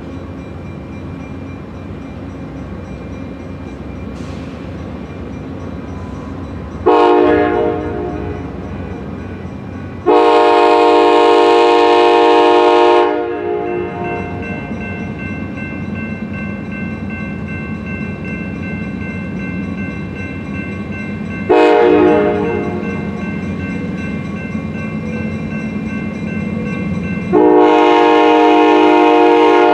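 Amtrak GE P42DC diesel locomotive approaching and sounding its horn four times: a blast, a long blast, a short one, and a long one starting near the end, the grade-crossing signal. The diesel engine's steady rumble runs beneath the blasts.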